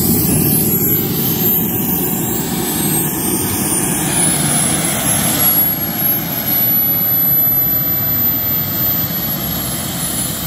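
Small turbine engine of a radio-controlled model jet running: a steady rush of exhaust under a thin, high-pitched whine. The whine climbs over the first few seconds, holds steady, then drops away near the end.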